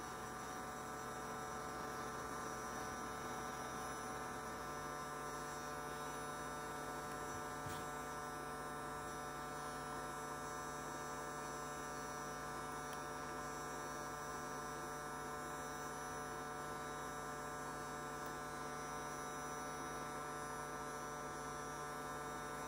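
8018LCD 450 W hot air soldering gun running, its fan giving a steady hum made of several whining tones, with one faint click about eight seconds in.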